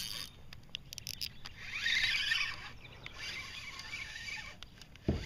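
Water splashing and pattering as a hooked largemouth bass thrashes at the surface beside a kayak, with a few light clicks in the first second and a low knock near the end.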